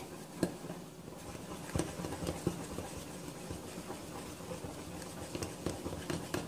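Wire whisk stirring thin batter in a glass bowl, with irregular light clicks and taps of the wires against the glass.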